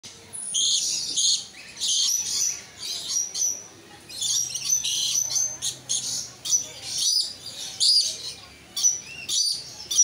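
Sun conures calling: a busy string of short, high-pitched squawks and chirps in repeated bursts, with a few sharp clicks among them.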